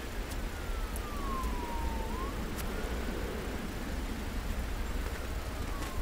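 Faint emergency-vehicle siren wailing, its pitch sliding slowly down and up, over a steady low rumble.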